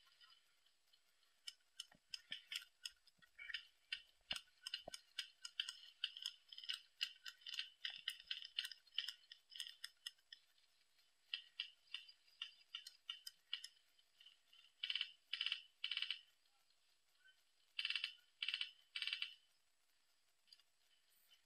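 Airsoft guns firing: a spatter of sharp, irregular clicking shots, then two groups of three short bursts, about half a second apart, near the end.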